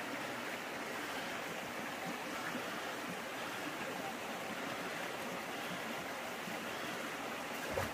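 Steady rushing of a flowing spring-fed stream, with a short knock near the end.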